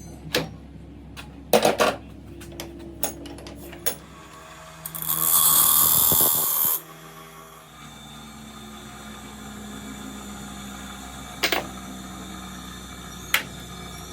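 Workshop tool sounds while a steering gearbox is restored: several sharp metallic knocks and clicks, then a loud hissing burst lasting about two seconds in the middle, then two more knocks over a steady low hum near the end.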